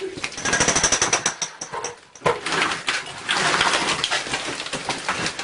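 A handheld power tool running with a fast, even hammering pulse and a high whine for about two seconds. It stops briefly, then a rougher, noisier stretch of demolition work follows.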